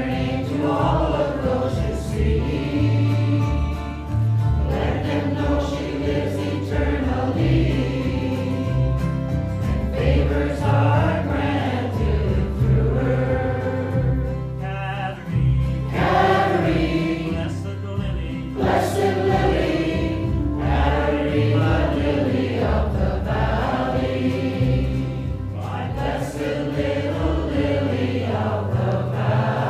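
Church congregation singing a hymn together, many voices in unison.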